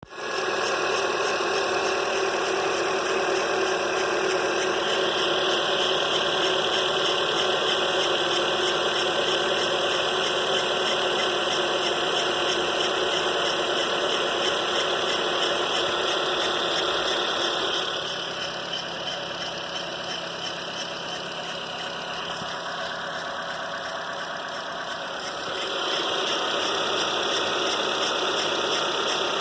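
Chevrolet Onix 1.0 engine running steadily with a persistent strange noise, a hissing, whining high band over the engine sound. The noise has lasted even after the dealership's mechanics replaced nearly the whole engine. Partway through the sound drops in level for several seconds, then comes back.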